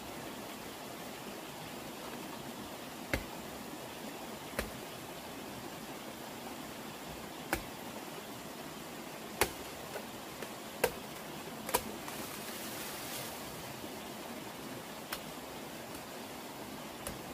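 A blade chopping at the base of a young bamboo shoot: about eight sharp single strikes, irregularly one to three seconds apart, over a steady background hiss.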